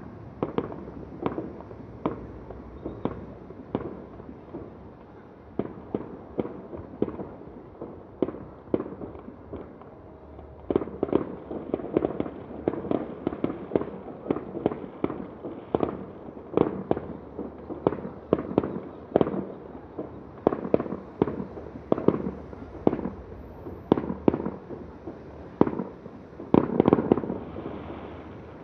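Fireworks display: a rapid, irregular barrage of shell bursts and bangs, growing denser and louder about ten seconds in, with a heavy flurry near the end.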